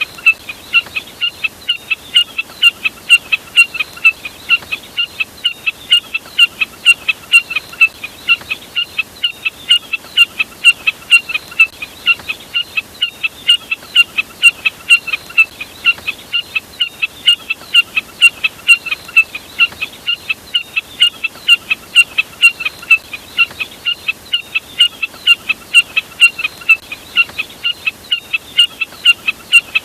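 Recorded jack snipe (burcet) call played on a loop as a lure. Short, sharp high notes repeat steadily, about three a second.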